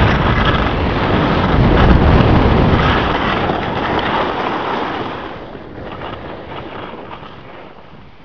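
Wind rushing over the camera microphone, mixed with the hiss and scrape of snow during a fast run down a ski slope. The noise stays loud for about five seconds, then fades as the run slows and stops.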